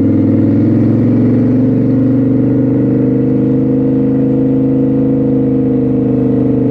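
Motorbike engine running steadily at low speed, an even, unchanging drone.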